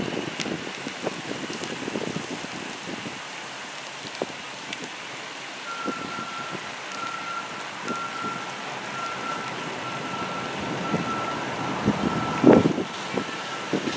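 Wind buffeting the microphone, with scattered crackles and a few knocks, the loudest near the end. From about halfway a faint high tone pulses roughly once a second.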